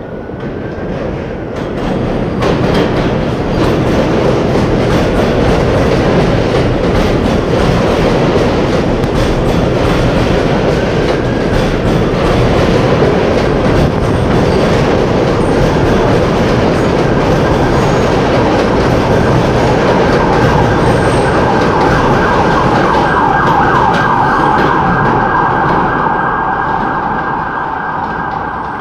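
New York City subway train running close by along an elevated station platform: a loud, steady rumble and clatter of steel wheels on the rails that builds over the first couple of seconds. A higher steady whine joins for the last few seconds before the sound eases off.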